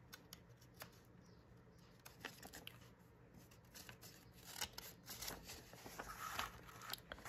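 Faint rustling and light clicks of old book pages being handled and leafed through, picking up about halfway through.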